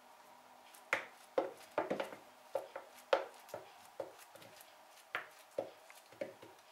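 A ripe banana being sliced by hand with a knife over a plastic bowl, the pieces dropping in: a string of short, irregular soft taps, roughly two a second, starting about a second in.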